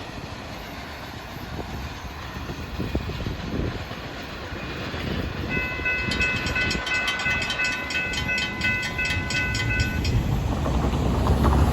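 Florida East Coast freight train of autoracks and intermodal cars rolling past, with a steady rumble and the clack of wheels over the rails. About halfway in, a high ringing tone with rapid pulsing sounds for about four seconds, then the rumble grows louder near the end.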